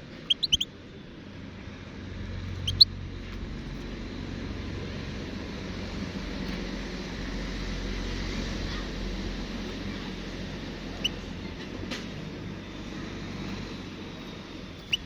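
European goldfinch giving a few short, high chirps: a quick cluster near the start, then single chirps about three, eleven and fifteen seconds in. The chirps sound over a steady low background rumble.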